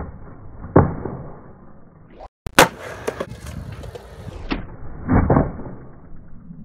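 Skateboard wheels rolling on concrete, with several sharp clacks of the board striking the ground as the skater pops the tail and lands.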